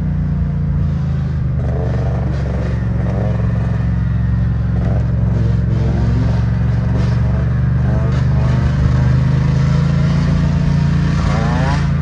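Motorcycle engines on the move: a steady low engine drone, with a two-stroke dirt bike, a Yamaha YZ125, revving up and down over it, most about two seconds in and again near the end.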